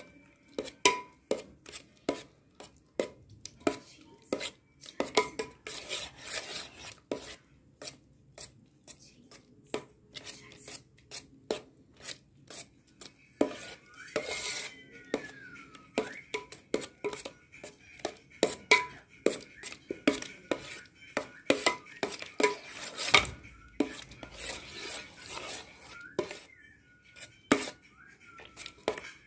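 Steel spoon clinking and scraping against a stainless steel bowl in irregular sharp taps, often one or two a second, as freshly churned butter is stirred and gathered out of the buttermilk.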